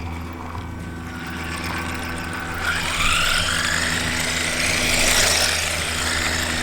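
Electric motor and gearbox of a 1/14-scale four-wheel-drive RC climbing truck whirring as it drives, over a steady low hum. It grows louder about halfway through, with a rising whine.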